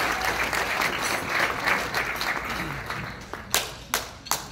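Audience applauding, the applause dying away about three seconds in to a few last separate claps.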